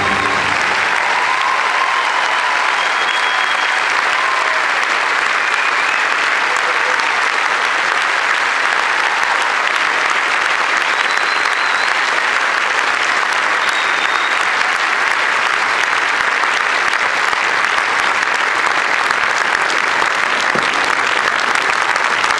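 Audience applauding steadily, with a few faint calls from the crowd over it in the first few seconds.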